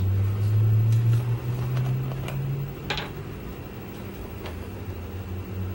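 A steady low mechanical hum, with a few light clicks and taps as tweezers and a jar of packing gauze are handled on a table, the sharpest click about three seconds in.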